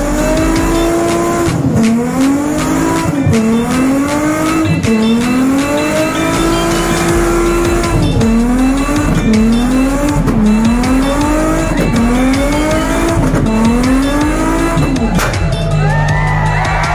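Nissan Skyline V35 coupe's V6 doing a burnout: the engine is revved up and let fall again and again, about once a second at its quickest, over the screech of spinning tyres. The revving stops near the end.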